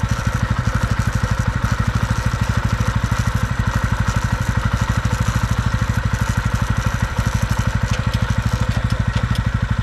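TVS Ronin 225's single-cylinder engine running steadily in a low gear, a rapid, even thumping without the chain noise that only starts from third gear.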